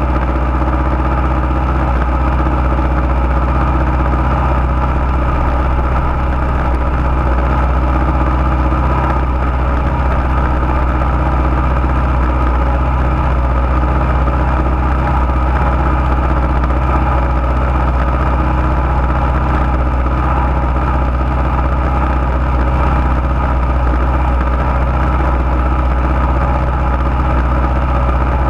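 Junior dragster's single-cylinder engine idling steadily, heard close up from a camera mounted on the car.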